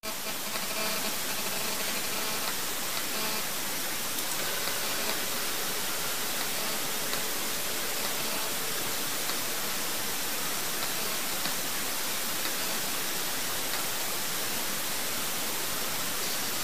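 Steady, even hiss of background noise, with no shots or handling sounds.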